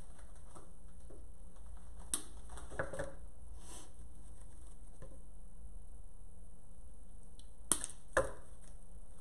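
A few short, sharp clicks and light rustling from handling artificial flower stems and leaves, over a steady low hum. The two loudest clicks come close together near the end.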